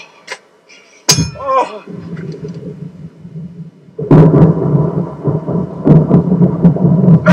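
A sharp metallic strike with a short ringing tail about a second in. About four seconds in, a loud rolling rumble of thunder sets in suddenly and continues over a low steady drone.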